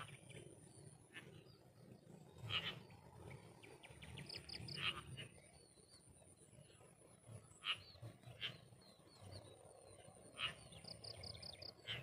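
Birds calling in short sharp chirps every second or two, with a quick run of ticks and two bursts of rapid high notes. Underneath is a faint, steady, high-pitched insect whine.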